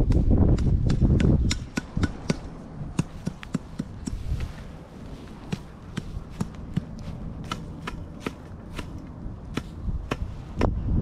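Footsteps through dry grass and brush: irregular crackles and snaps of stems and twigs underfoot, two or three a second. Wind buffets the microphone for the first second and a half.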